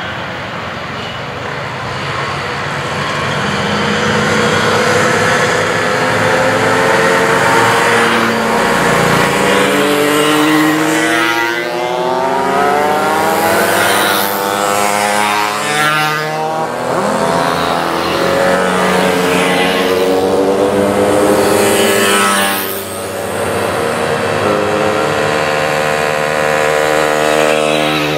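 A group of small two-stroke mopeds riding past one after another, several engines buzzing at once, each rising as it approaches and dropping in pitch as it goes by. The engines grow louder a few seconds in, pass in a stream through the middle, ease off briefly, then more mopeds come up near the end.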